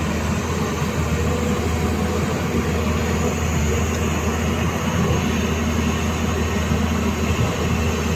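Hyundai Robex 215 crawler excavator's diesel engine running steadily under working load as the machine digs mud, a constant low drone.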